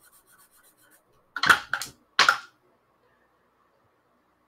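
A marker scratching faintly on paper, then a pair of dice tossed onto the game sheet, clattering in two quick bursts of clicks about a second and a half in.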